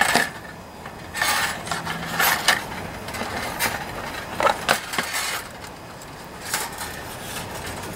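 Hands handling a plastic recoil starter housing and its pulley: a run of irregular clicks, rattles and scrapes of hard plastic parts, busiest in the middle with another flurry near the end.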